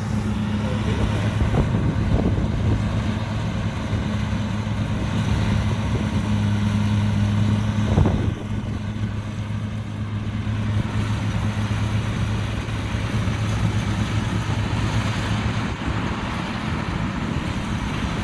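Kubota DC60 combine harvester's diesel engine running at a steady, even hum. A single knock comes about eight seconds in, after which the sound is slightly quieter.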